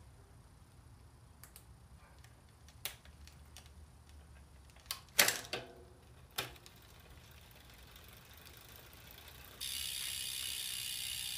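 Bicycle chain being refitted: sharp metal clicks and clinks as the chain is handled and joined, the loudest about five seconds in. Near the end the drivetrain is spun by hand, giving a steady ratcheting buzz for about two seconds.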